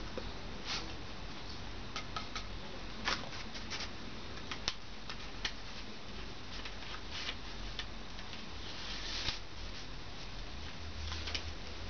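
Irregular light clicks and taps, a few sharper than the rest, over a steady low hum.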